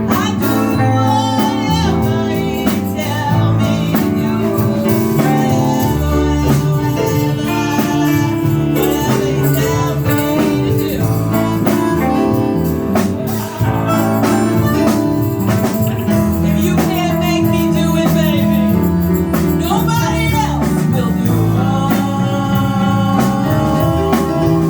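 A live band plays a blues-style number, with held organ chords, guitar and a singer's voice.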